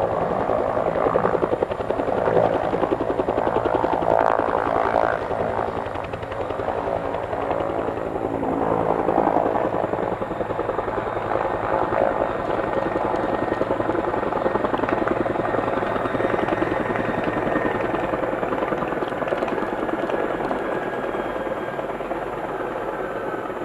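Bell 212 helicopter running: the quick, even beat of its two-blade main rotor over the Twin-Pac turbine engines, with a thin turbine whine. It eases slightly in loudness over the second half.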